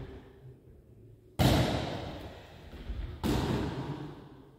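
Two hard punches from a boxing glove smacking into focus mitts, a little under two seconds apart, the first the louder, each trailing off in the echo of a large hall.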